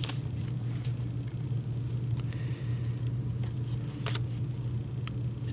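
Steady low hum in the room, with a few soft ticks and light rustles of hockey trading cards being handled in cotton gloves.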